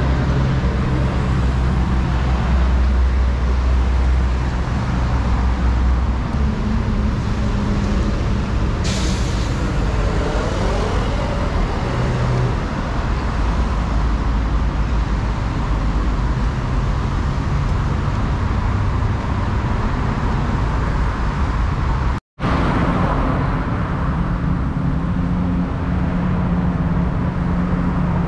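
Road traffic passing close by on a busy street: the steady noise of car and truck engines and tyres. About nine seconds in comes a short hiss, and about two-thirds of the way through the sound drops out completely for a moment.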